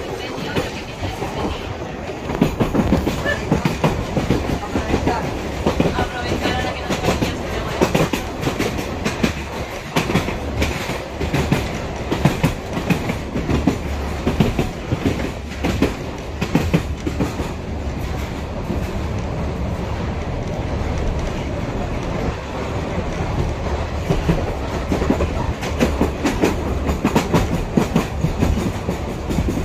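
Wooden train running along the track: a steady rumble with a dense clatter of wheels over the rail joints and carriages rattling.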